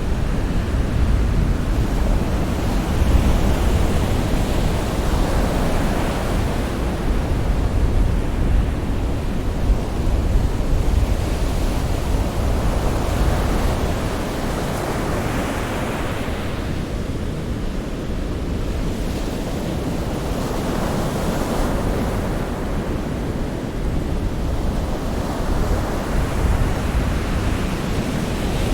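Sea waves breaking and washing on the shore in a continuous surf, with a deep rumble underneath and swells that build and ease every several seconds.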